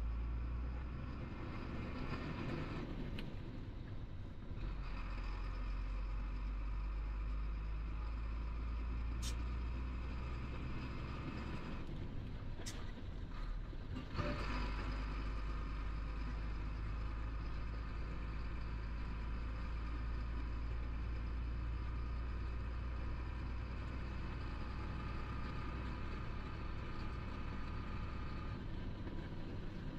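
Heavy truck's diesel engine and road noise heard from inside the cab while driving. The engine note drops away twice, about 3 seconds in and again around 12 seconds, with a few sharp clicks as the driver changes gear.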